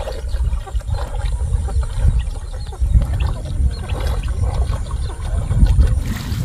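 Wind buffeting the microphone: a rough, uneven low rumble, with faint short chirps and ticks above it.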